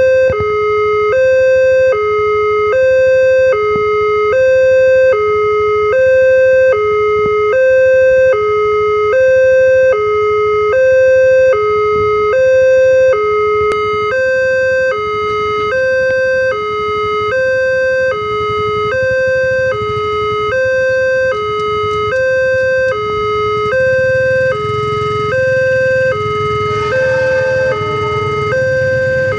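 Railway level-crossing warning alarm sounding continuously, an electronic two-tone signal alternating high and low about once a second, warning that a train is coming. A low rumble builds under it over the last few seconds as the train approaches.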